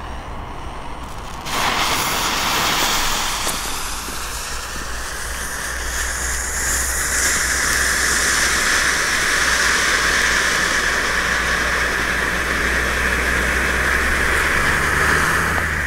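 Two ground fountains (Sky Robot) hissing steadily as they spray gold sparks. The hiss starts suddenly about a second and a half in and grows fuller a few seconds later.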